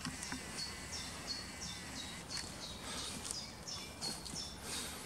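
A small bird calling over and over, short high notes that each fall in pitch, about three a second, with a few rustles of footsteps on twigs and dry leaves.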